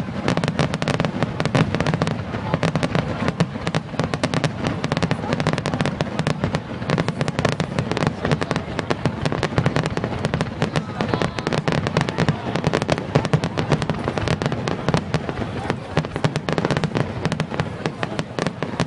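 Fireworks going off in a rapid, continuous barrage of bangs and crackles.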